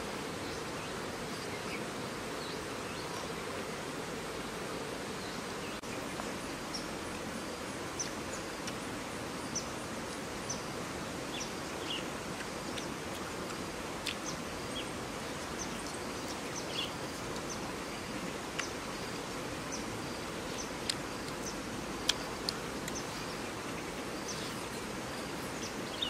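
Steady outdoor rural ambience with insects droning and many short, high chirps scattered throughout, plus a few brief ticks.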